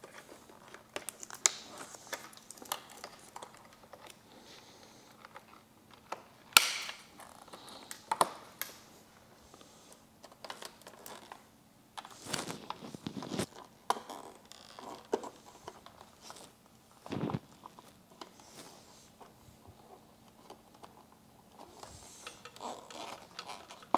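Scattered clicks, rattles and rustles of plastic wiring connectors and loose wires being handled and snapped back into place inside a motorcycle's fairing, with a few louder snaps spread through.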